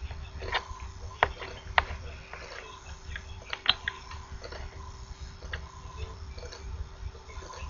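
Small sharp clicks and taps from handling a printed circuit board and soldering iron at the bench, the two loudest a little over a second in and half a second later, then a quick cluster near the middle, over a steady low hum.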